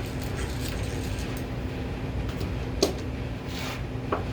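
Steady low background hum, with two light clicks or knocks, about three seconds in and near the end.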